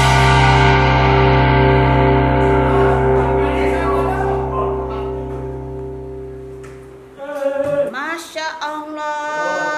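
Background rock music: a guitar chord held and slowly fading away, then about seven seconds in a short sung phrase with sliding pitch.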